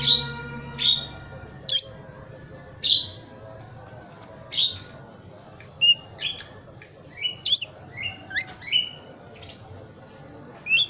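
Oriental magpie-robin (kacer) calling: about a dozen short, separate chirps and harsh notes, some sweeping upward, at uneven intervals.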